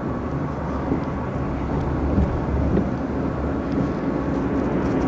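Car interior road noise while driving: a steady low rumble of engine and tyres heard from inside the cabin.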